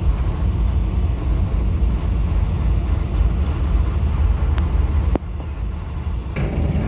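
Steel wheels of a slowly moving train of loaded flat wagons rolling on new slab-track rail, a steady low rumble. There is a single click about four and a half seconds in. About five seconds in, the sound drops suddenly and becomes quieter and different.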